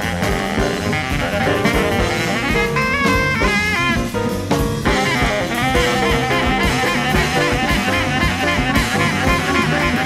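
Small jazz group playing fast bebop: saxophone lines over piano, upright bass and a drum kit.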